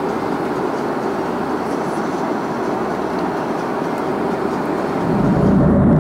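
Steady cabin roar of an Airbus A340-600 in flight, engine and airflow noise heard from an economy window seat. About five seconds in it grows louder and deeper, with the hiss thinning out.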